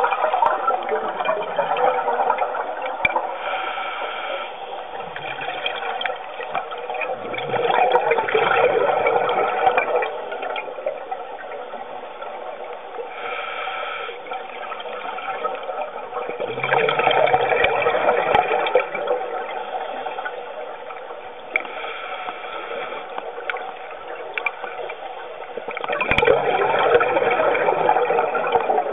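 Scuba divers breathing through regulators, heard underwater: a gurgling rush of exhaled bubbles about every nine seconds, each lasting two to three seconds, with a fainter hiss between them.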